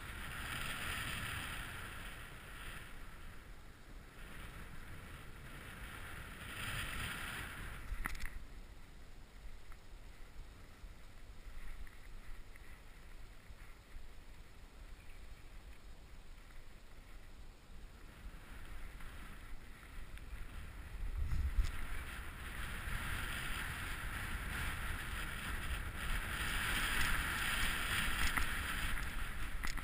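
Snowboard sliding through powder snow, the base hissing in swells as the rider turns, over the low rumble of wind on the helmet camera's microphone. A sharp knock comes about eight seconds in and another about twenty-one seconds in.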